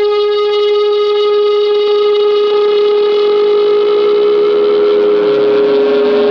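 Rock song outro: one note held as a steady drone with strong overtones. From about halfway through, further tones slide away from it in pitch, giving a siren-like sweep.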